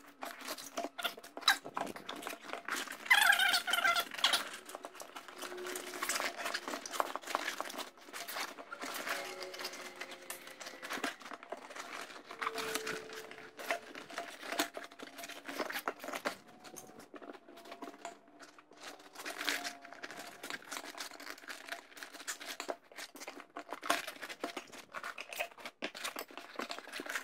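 Large rubber inner tube for a 25-inch loader tire being folded and stuffed by hand into the tire: rubber rustling and rubbing against the tire, with a few short squeaks.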